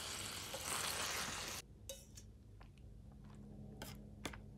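Stir-fry sizzling in the pan, cutting off abruptly about a second and a half in. Then a few light clinks of chopsticks against a plate.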